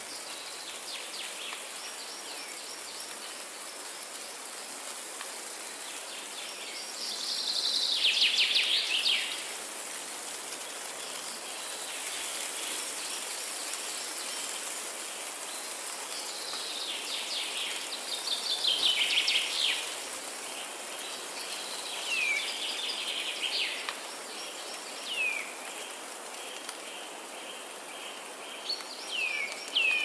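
Forest birds singing: fast trilled phrases, the loudest one about eight seconds in. In the second half come several short calls that sweep downward, all over a steady high hiss.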